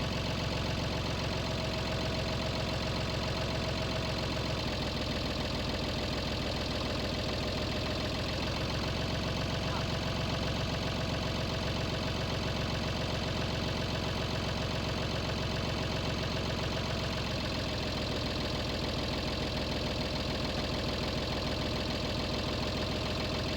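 Tractor engine running steadily at idle while it holds a load.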